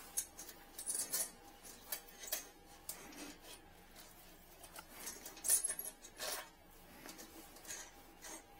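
Scattered small clicks, taps and rubbing from handling drain-cleaning gear and the inspection camera cable, with a sharper knock about five and a half seconds in, over a faint steady thin tone.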